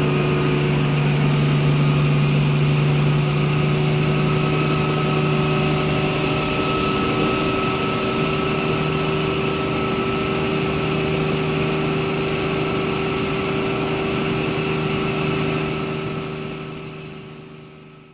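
Helicopter heard from inside the cabin: a steady drone of turbine engine and rotor, with a constant whine over it, which fades away over the last couple of seconds.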